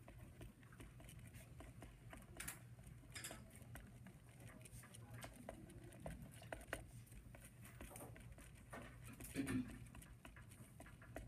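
Pen writing on lined notebook paper: faint scratching strokes and small taps as words are written, over a low steady electrical hum.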